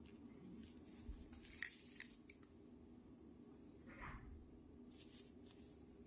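Faint metallic clicks from a Rike Alien balisong as it is handled and flipped: two sharp clicks about a second and a half and two seconds in, with a few lighter ticks and a soft brushing sound about four seconds in.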